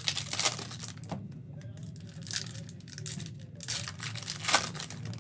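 Foil trading-card pack crinkling and tearing open in the hands, with crackly bursts at the start and again about four seconds in.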